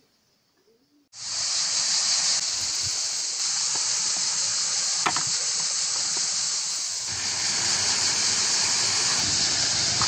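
Cicadas singing in a loud, steady, high-pitched drone that starts abruptly about a second in. From about seven seconds in, water running over a stony riverbed joins it, with a single click near the middle.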